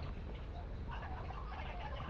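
Pan of chicken in thick sauce cooking on low heat, with faint, irregular light ticks and scrapes.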